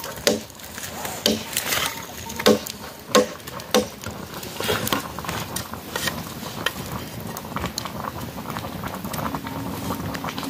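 Curved sickle blade chopping against a slab of bark on the ground: about five sharp strikes in the first four seconds, then quicker, lighter ticking and scraping as the blade works a thin stick.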